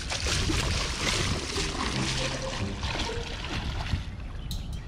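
Shallow lake water sloshing and trickling around a person's legs as he wades in.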